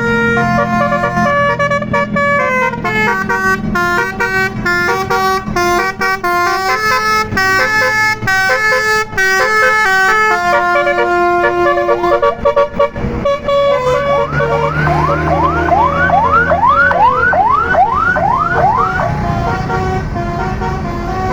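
Basuri multi-tone air horn on a tour bus playing a quick melody of held, stepped notes, followed by about a dozen quick rising whoops, roughly two a second. A bus engine runs underneath, louder during the whoops.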